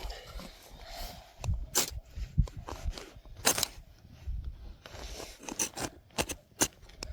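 Irregular sharp snaps and clicks, with soft low thuds in between, from handling sticks and kindling while getting a campfire lit.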